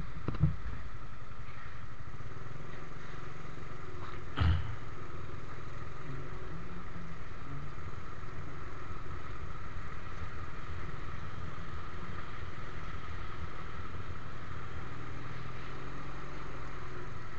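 Motorcycle engine running steadily at low speed, heard from the bike itself, with a brief loud thump about four and a half seconds in.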